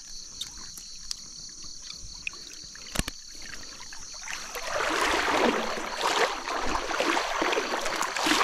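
Shallow river water splashing and sloshing irregularly, starting about halfway through and getting louder. Before that, a steady high insect trill and one sharp knock about three seconds in.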